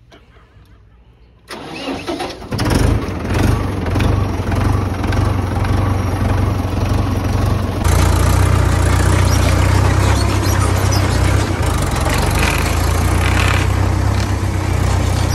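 Tractor diesel engine cranking and starting about a second and a half in, then running steadily with a strong low rumble.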